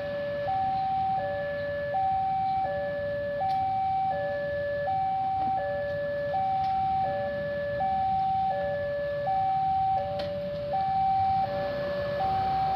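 Railway level-crossing warning alarm: an electronic signal alternating steadily between a higher and a lower tone, each held about two-thirds of a second, over a low rumble.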